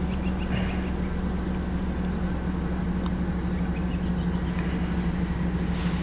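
2005 Chevy 2500 HD's gasoline V8 idling steadily at about 1000 rpm, heard from inside the cab. It is a cold idle just after start-up, with the engine still in open loop.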